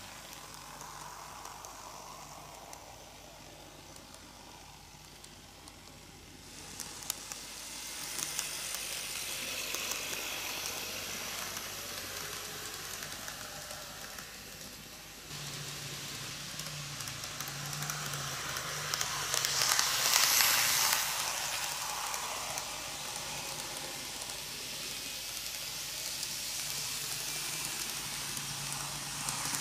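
N-gauge model electric trains running on TOMIX canted track: the steady hissing rattle of small metal wheels rolling on the rails, with motor hum and a few sharp clicks over rail joints. The noise grows louder as the trains circle the oval and is loudest about two-thirds of the way through.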